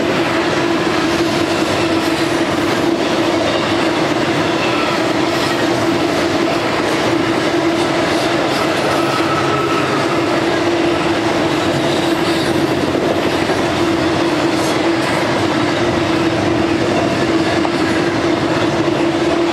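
Intermodal freight train's loaded trailer and container cars rolling steadily past: a continuous rumble of steel wheels on rail, with a steady droning tone underneath.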